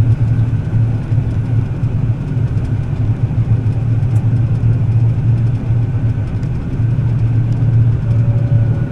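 John Deere combine harvester running steadily while cutting wheat: a constant low engine drone with a faint, steady higher whine.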